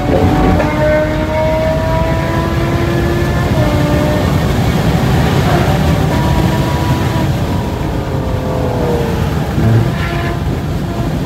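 Tesla Model S Plaid's electric drive motors whining inside the cabin under hard acceleration, the whine rising in pitch as speed builds to about 135 mph. It then falls as the car slows, over heavy tyre and wind noise.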